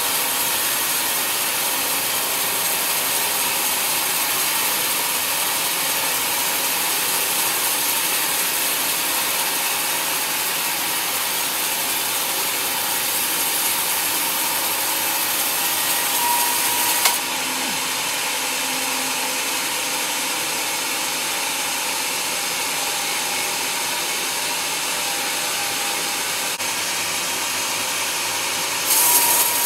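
Band sawmill blade running and cutting lengthwise through a large teak log, a steady hissing saw noise. A sharp click comes a little over halfway, after which the high hiss drops, then rises again near the end.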